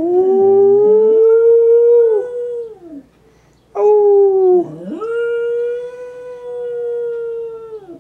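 Shetland sheepdog howling, still drugged hours after hip surgery: a long howl, a short one that drops in pitch about four seconds in, then another long steady howl.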